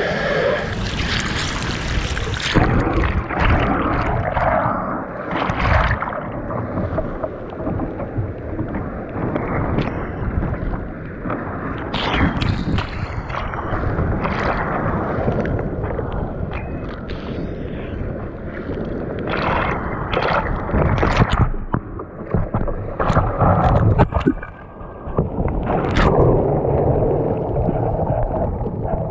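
Surf breaking and water splashing against a fishing kayak as it is paddled out through the waves, with wind rumbling on the microphone. Several sharper splashes stand out over the steady wash, the loudest near the end.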